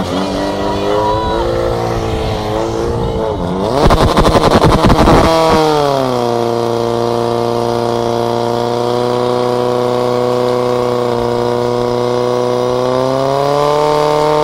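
Portable fire pump engine revved up, its pitch rising, with a loud rough stretch about four seconds in. It then holds steady at high revs while pumping water through the hoses to the jets, and its pitch rises slightly near the end.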